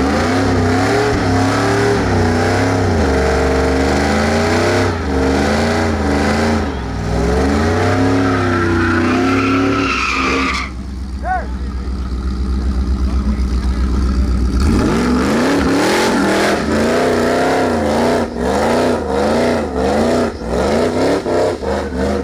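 Car engines revving up and down repeatedly, the pitch rising and falling about once a second. About ten seconds in the revving drops away for several seconds, then starts up again.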